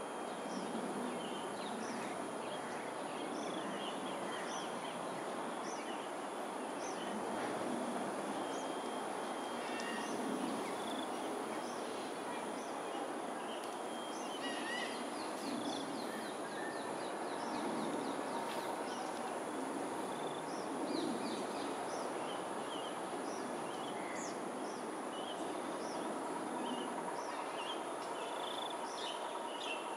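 Outdoor ambience of many small bird calls and chirps scattered throughout, over a steady background hiss, with a steady high-pitched whine running underneath.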